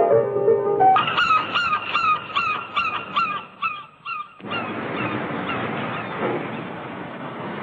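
Piano music ends about a second in. It gives way to a bird's cries: about nine short falling calls, roughly three a second, fading out. A little over four seconds in these cut off abruptly into a steady rushing noise.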